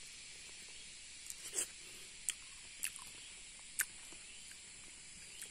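A few faint, short clicks and smacks of someone chewing a fresh strawberry, over a steady high hiss.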